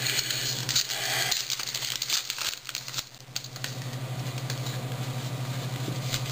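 Baseball trading cards being handled and flipped through by hand, with light clicks and rustles of card stock, over a steady low hum.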